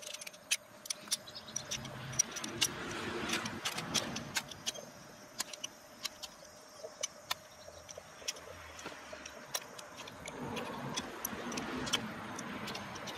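Adjustable steel wrench jaw scraped again and again along a ferrocerium fire-starter rod, used as a stand-in striker: sharp metallic scrapes and clicks at irregular intervals. Behind them a low rushing noise rises and falls twice.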